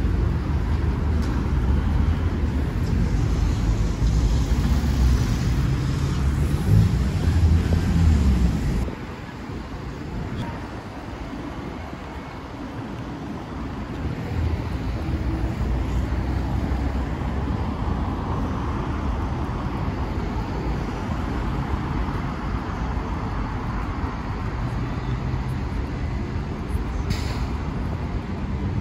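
City street traffic: cars passing on the road. A heavy low rumble in the first nine seconds stops suddenly, and a steadier, quieter traffic noise follows.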